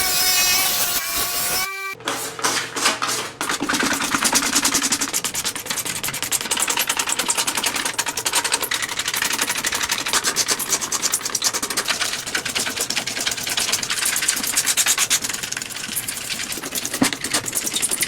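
Sandpaper rubbed on a plastic car brake light lens, in quick, even, regular strokes, starting about two seconds in.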